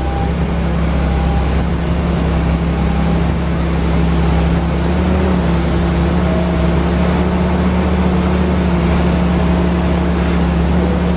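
Wheeled excavator's diesel engine running steadily under load while its bucket pushes soil.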